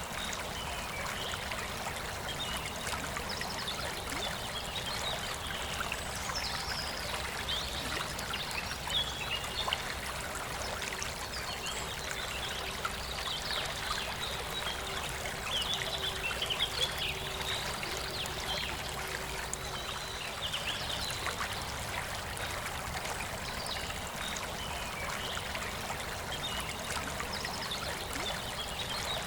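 A forest river running steadily, with birds singing in short, repeated chirping phrases throughout.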